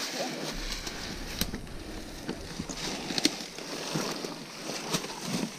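Rustling and scraping of fir branches and forest-floor litter, with several sharp clicks and knocks.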